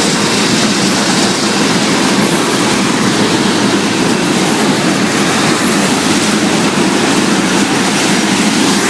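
Crude oil freight train rolling past: a loud, steady rumble and hiss of steel wheels on the rails.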